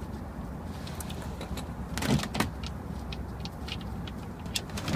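Oil pan drain plug being unscrewed by gloved fingers, with faint scattered clicks from the plug and its threads. There is a brief rush of noise about two seconds in, over a steady low hum.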